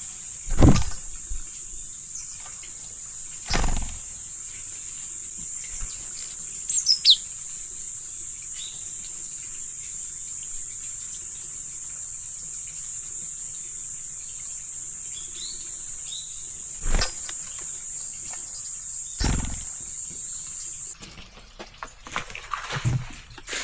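Countryside ambience: a steady, high-pitched insect chorus that cuts off suddenly near the end, with a short falling bird chirp and a few soft thumps.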